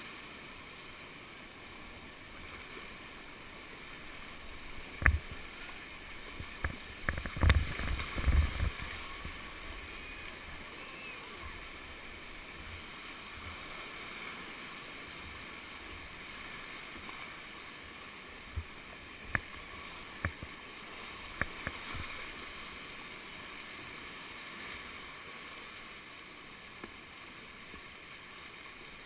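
Whitewater rapids rushing past a kayak as a steady wash of water, with sharp knocks and splashes about five to eight seconds in and a few more near the twenty-second mark.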